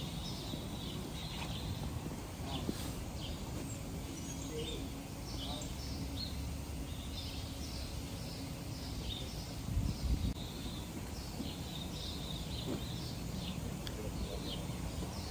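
Small birds chirping again and again over a low outdoor rumble, with a brief low buffeting about ten seconds in.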